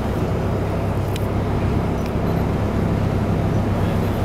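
Express passenger boat's engines running with a steady low drone, heard from on deck, over a hiss of wind and water.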